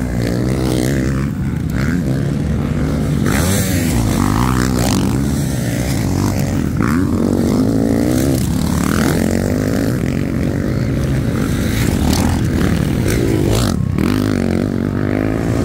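Motocross bike engines revving on a dirt track, the pitch repeatedly rising and falling as the riders open and close the throttle.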